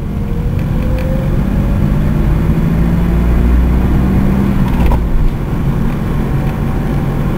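Car driving, heard from inside the cabin: a steady engine and road rumble, with a faint whine that rises in pitch over the first second or so as the car picks up speed. There is a brief click about five seconds in.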